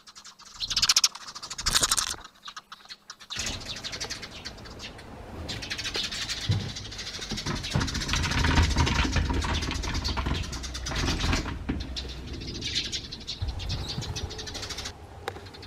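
Eurasian tree sparrows chirping hard in quick bursts, the squabbling calls of sparrows chasing each other. From about three seconds in, the chirping goes on over a steady low rumble.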